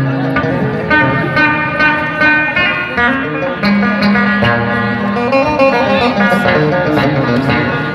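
Live Amazigh band music: banjo and guitars playing a plucked melody over hand drums and a bass line.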